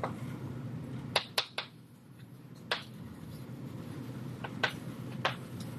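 Sharp taps of writing on a board, about six in irregular bunches, over a steady low room hum.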